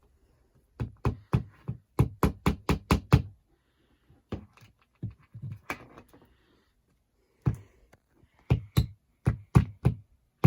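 A hammer tapping in short runs of quick knocks, about six blows a second at its fastest, with pauses between the runs.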